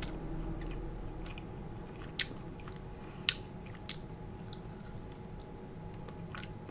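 A person biting into a deep-fried, breaded mac and cheese bite and chewing it, with a few short crisp clicks and crunches over a low steady hum.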